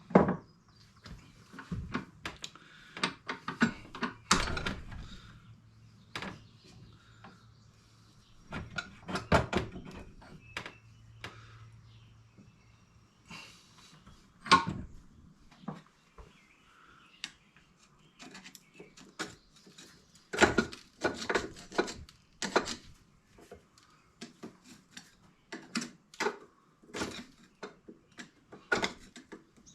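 Irregular clicks, taps and knocks of hand tools working at the metal parts of an ATV prop shaft joint, with a faint low hum for several seconds early on.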